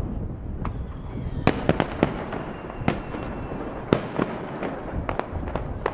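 Aerial fireworks shells bursting: an irregular string of sharp bangs and cracks, a dozen or so in six seconds, over a steady low background rumble.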